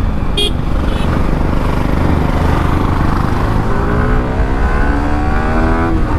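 Motorcycle engine running under way, pulling up through the revs over a few seconds and dropping suddenly near the end, as at a gear change. Underneath is a dense steady low rumble.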